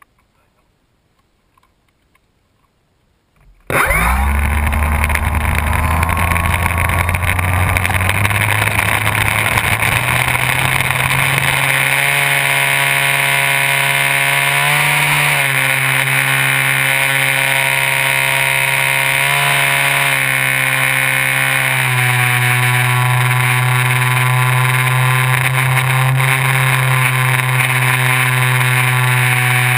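Electric motor and propeller of a Multiplex FunCub RC plane, recorded from on board: after a few seconds of near silence the motor starts suddenly and runs loud with a steady whine, its pitch shifting in steps as the throttle changes during the takeoff run and climb.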